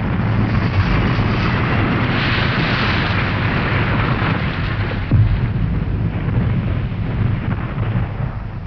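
Explosion sound effect: a long, loud rumble with a sharp crack about five seconds in, slowly dying away near the end.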